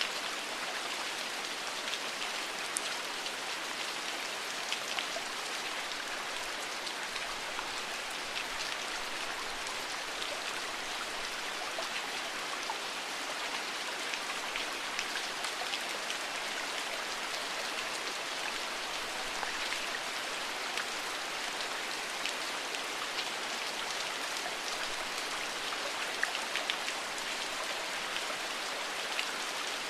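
Steady rainfall, with many small drops pattering on a surface over an even hiss.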